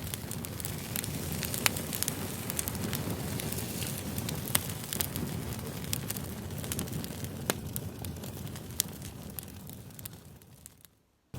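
Campfire crackling: a steady low rumble of burning wood with frequent sharp pops and snaps. It fades away to silence near the end.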